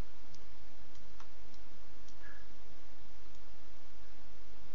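A handful of light, sparse computer mouse clicks over a steady background hiss.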